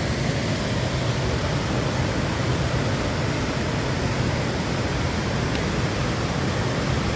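Steady rush of a rain-swollen river pouring over rapids and a wide waterfall in high flow.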